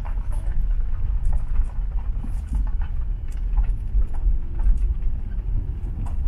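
Car driving slowly on a gravel road, heard from inside the cabin: a steady low rumble of road and engine noise with scattered small clicks and pops of gravel under the tyres.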